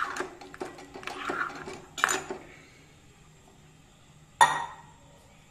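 Steel ladle stirring buttermilk in a metal pot, scraping and clinking against the pot for about two seconds. A little past four seconds in, one loud ringing metal clank.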